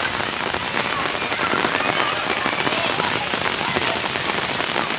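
Heavy rain falling steadily and splashing on surfaces, a dense hiss of many drops.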